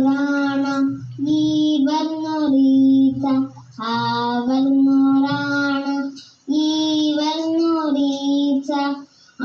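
A child singing a slow melody in long held phrases with short breaths between, played through a television's speaker.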